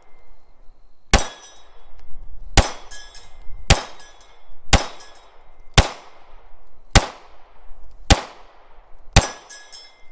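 Ruger MAX-9 9mm pistol fired eight times at a steady pace of about one shot a second, with the small steel reaction target ringing after the hits.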